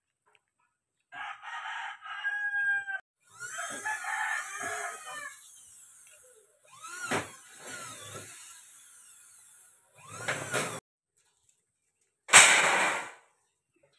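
Rooster crowing several times, the loudest crow near the end.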